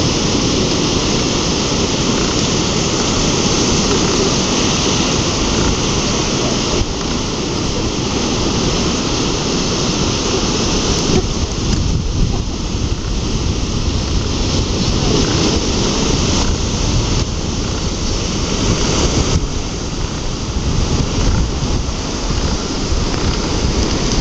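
Ocean surf washing over a lava-rock shoreline, a steady rushing noise with a heavy low rumble that shifts in level a few times.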